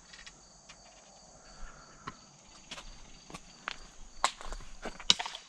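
Irregular sharp clicks and taps, the loudest about four and five seconds in, over a steady high chirring of crickets.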